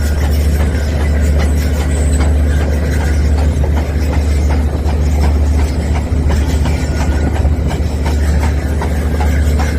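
RC drilling rig running: a steady, loud, low engine drone with a fast, irregular rattle over it.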